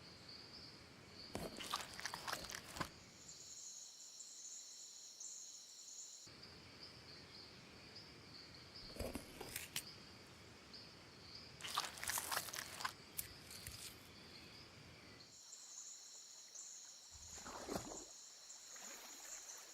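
Faint outdoor nature ambience: insects trilling steadily at a high pitch, broken by about four brief rustling, crunching sounds.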